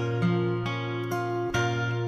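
Gentle background music played on plucked acoustic guitar, one note after another.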